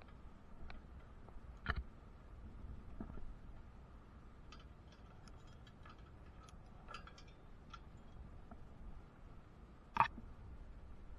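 Scattered light clicks and taps of a tower climber's gear, with a sharper click near the end, over a low steady rumble.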